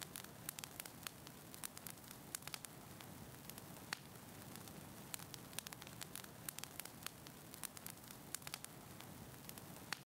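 Fire crackling: irregular sharp pops and snaps, several a second, over a faint steady hiss.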